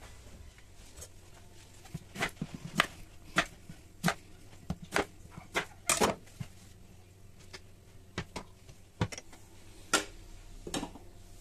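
Irregular light knocks and clicks of kitchen items being handled on a counter, about fifteen of them over several seconds, while lemon halves and an electric citrus juicer are set up.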